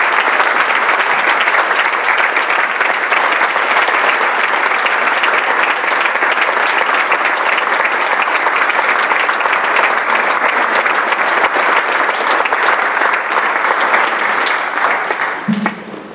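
Council members and audience applauding steadily, the clapping dying away near the end.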